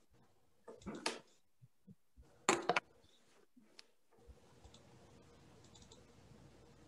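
Scattered clicks and two short, louder scuffs of someone working at a computer, picked up through a video-call microphone; a faint steady hum comes in about four seconds in.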